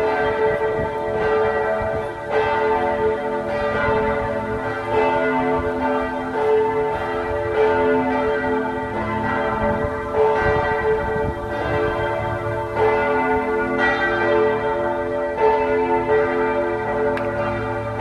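Bells of the Serbian Orthodox Church of Saint Sava ringing. Several bells sound together, a fresh stroke a little more than once a second, their tones ringing on and overlapping.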